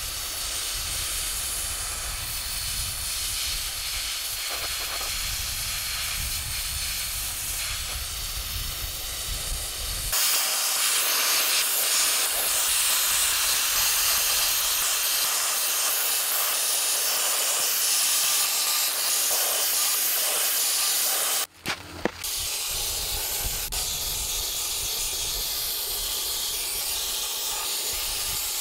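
Steady hiss of a siphon-feed sandblasting blowgun: compressed air drawing play sand up from a bucket and blasting rust and old paint off a steel spoke wheel. It grows louder about a third of the way in and breaks off for a moment about three-quarters through.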